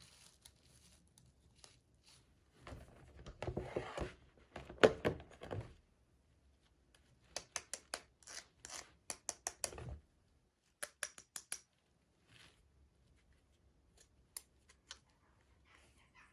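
Toy packaging being opened and handled by hand: a few seconds of rustling and scraping, then runs of small sharp clicks and taps, thinning out near the end.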